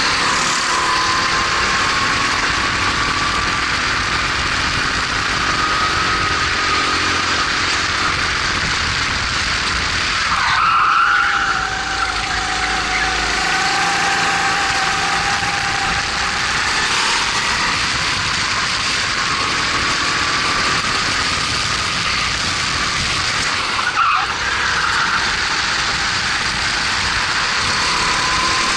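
Racing kart's single-cylinder Honda GX270 four-stroke engine running at high revs, its pitch climbing slowly along the straights. The revs drop sharply about ten seconds in as the driver lifts, then build again, with another brief lift near the end.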